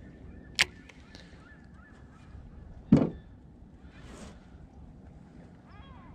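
A baitcasting rod and reel being cast: a sharp click about half a second in, then a single loud thump about three seconds in. Geese honk faintly in the background.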